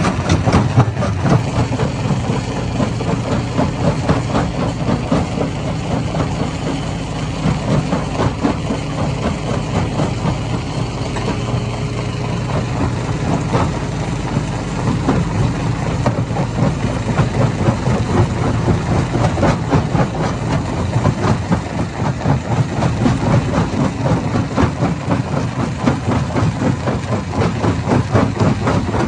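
A hammer-type stone crusher running under load: a steady low machine sound with a dense, rapid clatter of rock being struck and broken.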